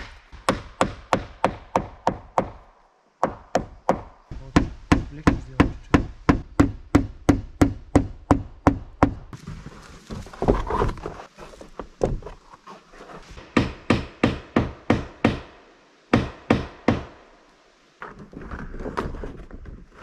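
Hammering: quick, evenly spaced hammer blows, about four a second, in several runs broken by short pauses.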